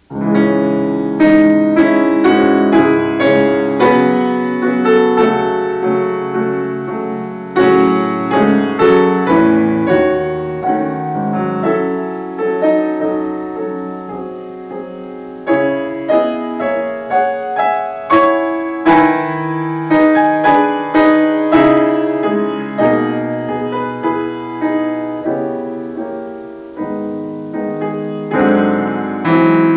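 Grand piano played solo: a flowing piece of chords and running notes, with loud accented chords every few seconds that ring and fade.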